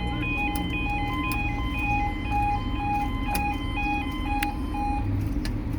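Two 'Hangman' level crossing alarms sounding together, each stepping back and forth between two notes, over a steady low rumble. They stop about five seconds in.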